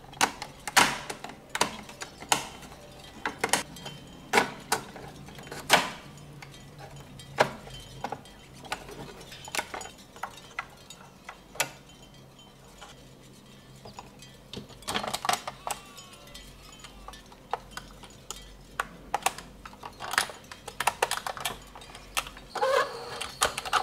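Small plastic and die-cast parts of a toy model school bus clicking and tapping irregularly as they are handled and snapped together, with a brief pitched sound near the end.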